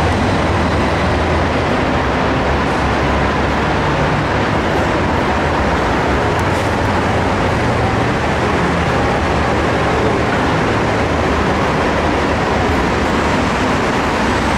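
Steady, loud running rumble of a Mexico City Metro train, an even noise with a low hum underneath and no distinct clatter or squeal.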